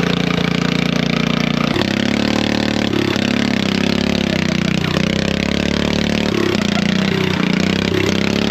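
Riding lawn mower engine running loud and close, steady at first, then its pitch rising and falling repeatedly as it is driven.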